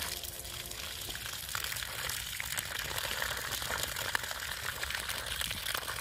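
Water running steadily as a continuous rushing hiss.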